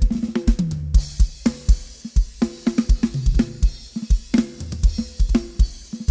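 Drum kit played at a sound check: kick and snare in a groove, with tom fills that step down in pitch and cymbal and hi-hat wash over them.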